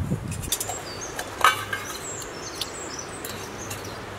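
Stainless steel Kelly Kettle parts being handled: a few light metal knocks and one louder clink with a short ring about a second and a half in. Birds chirp in the background.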